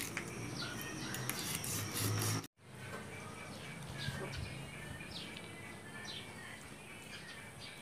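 Small birds chirping in the background: many short, quick, falling chirps, repeated throughout. The sound cuts out completely for a moment about two and a half seconds in.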